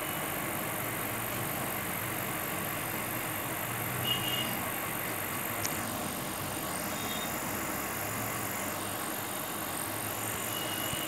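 Steady background noise, with a few faint short high tones and a single tick a little before the six-second mark.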